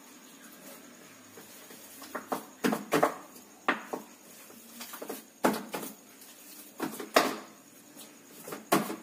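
Boiled potatoes being mashed by hand in a plate: irregular knocks and thuds of hands and plate, coming in small clusters.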